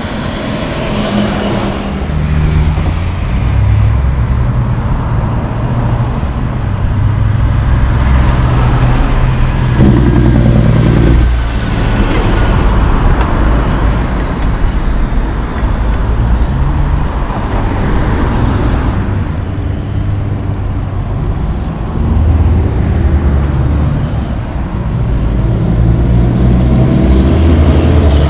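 Heavy diesel semi-trucks pulling loaded lowbed and flatbed trailers drive past with road traffic. Their engine note climbs and drops as they work through the gears.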